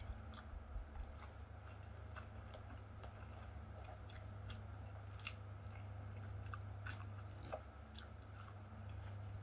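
A man chewing food, with scattered wet mouth clicks and smacks, over a steady low hum.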